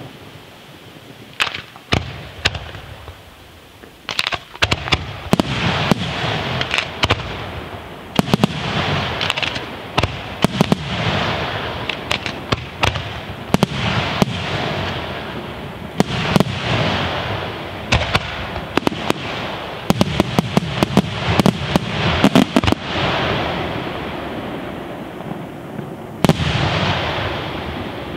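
Aerial firework shells bursting in rapid volleys, with sharp bangs over a dense crackle of glittering stars. The volleys start sparse, become packed after a few seconds, ease off briefly, then come back in a last cluster of bangs near the end.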